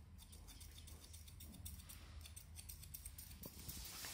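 Straight hairdressing scissors snipping hair: faint, quick, repeated snips.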